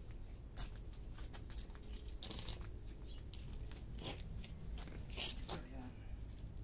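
A seed packet being handled in the hands, rustling and crinkling in a string of short, irregular crackles.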